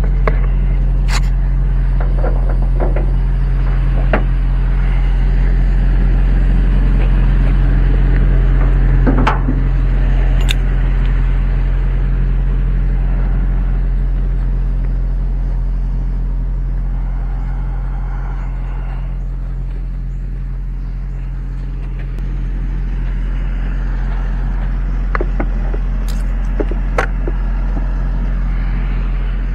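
An engine idling steadily, a constant low hum, with a few sharp clicks and knocks from gear being handled.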